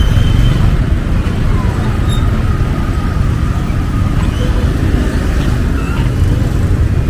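Busy street-market ambience: a steady low rumble of passing traffic and motorbikes under background chatter from vendors and shoppers.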